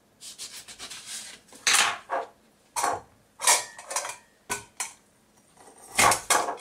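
Kitchen clatter: a knife cutting a lemon on a plastic chopping board, then a series of separate knocks and scrapes as a metal citrus press is handled, the loudest near the end.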